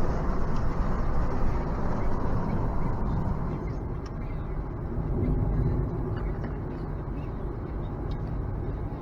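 Steady road and tyre noise with wind rush, heard from inside a moving Nissan Leaf at highway speed, with no engine note since the car is electric.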